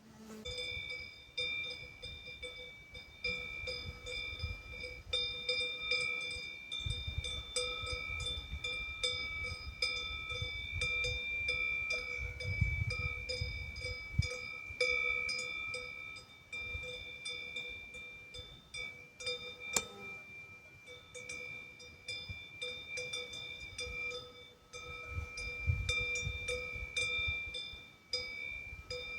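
Cowbells on grazing cows clanking and ringing almost without a break, the clapper strikes coming thick and irregular, with a low rumble underneath at times.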